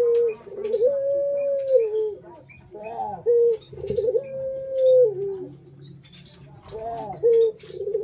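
Puter (ringneck dove) cooing: three coos about three seconds apart, each a few short stuttering notes and then a long held note that drops in pitch at the end. Faint high chirps run underneath.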